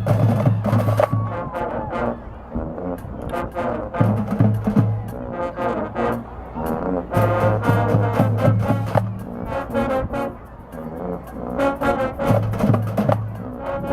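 High school marching band playing a loud brass-led piece with drumline, the low brass and bass drums hitting together in repeated groups of accented notes.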